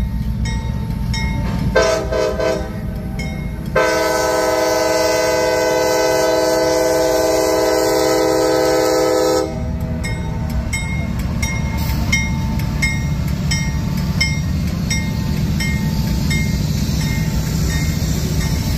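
Diesel locomotive air horn at a grade crossing: a short blast, then a long blast of about six seconds. Under it runs the rumble of the lead CSX diesel locomotives as they pass close by, with a crossing bell dinging steadily.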